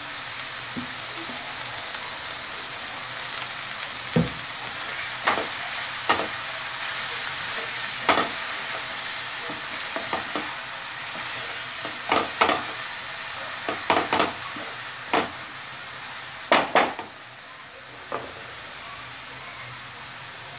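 Fenugreek leaves sizzling in oil in a kadhai, with a spatula scraping and knocking against the pan in short strokes every second or two as the greens are stirred.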